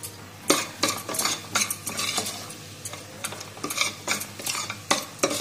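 Long steel spoon stirring and scraping thick masala paste in a stainless steel pressure cooker, with repeated irregular scrapes of metal on the pot, about two a second.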